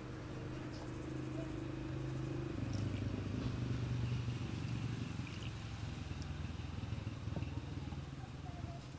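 A low, steady engine hum, growing a little louder and lower about two and a half seconds in, with faint clinks of a wooden spoon against a bowl.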